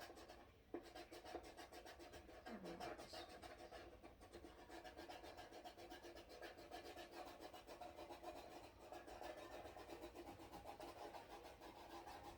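Faint, fast scratching of a felt-tip marker being scribbled back and forth over a plastic toy blaster.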